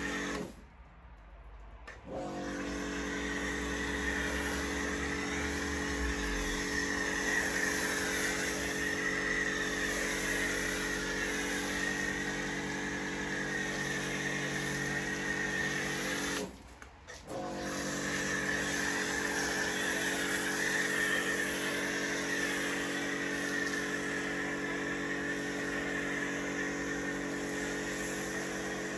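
Kärcher K4 pressure washer running, its motor and pump giving a steady hum under the hiss of the foam lance spraying snow foam. It stops twice, about a second in and again around seventeen seconds in, as the trigger is let go, and starts again about a second later each time.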